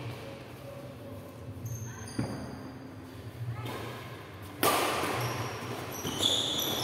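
Badminton being played in a hall: a sharp racket hit on the shuttlecock about two seconds in, then a louder, echoing hit just before five seconds. Short high squeaks of shoes on the court come between them and again near the end.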